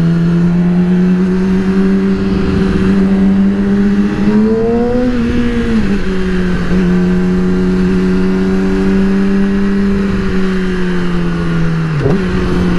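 A 2008 Yamaha R6's inline-four engine running at steady revs while riding, over a rush of wind. About four seconds in the pitch rises briefly and falls back, and near the end it dips twice in quick succession.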